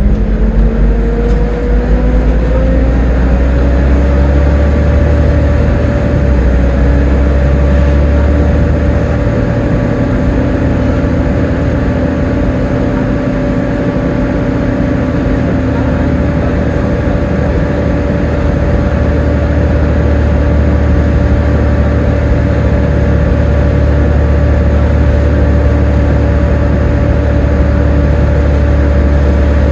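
Volvo B7TL double-decker bus running under way, its driveline whine (the 'Hoover' whine) rising in pitch over the first few seconds as the bus accelerates, then holding steady while cruising over a heavy low rumble.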